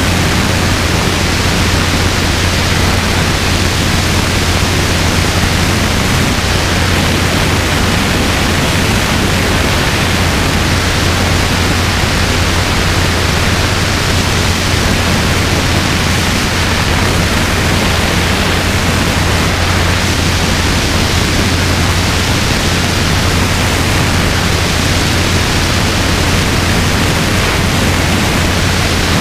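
Robinson R22 helicopter in steady flight: a constant rush of wind on the microphone over a steady low drone from the rotors and engine.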